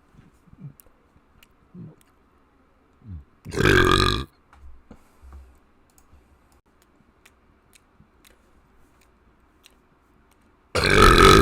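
A person burping loudly twice, about seven seconds apart, each burp lasting well under a second; the second one runs on past the end. Faint clicks in between.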